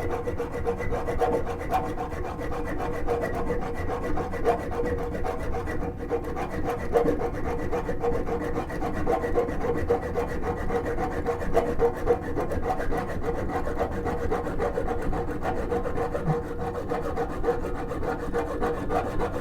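Hand hacksaw cutting through a brass toilet closet bolt above its nut, in steady, continuous back-and-forth strokes.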